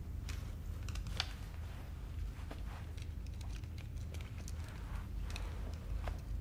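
Tense room tone: a steady low hum with scattered soft clicks and rustles of small movements, the sharpest click about a second in.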